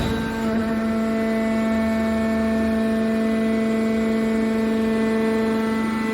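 Hydraulic metal press baler running, its motor and pump giving a steady hum.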